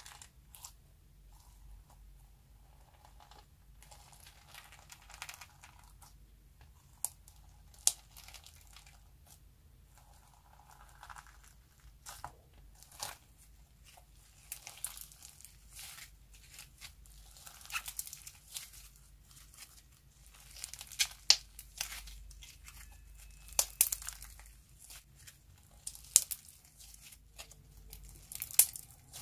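Yellow slime full of star-shaped sequins being kneaded, squeezed and pulled by hand: irregular sticky crackles and sharp pops, busier and louder in the second half.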